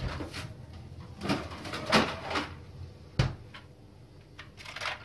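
Knocks and short rattles of kitchen handling off-camera as an ice tray is fetched: several separate bumps, the loudest about two seconds in, and a sharp click a little after three seconds.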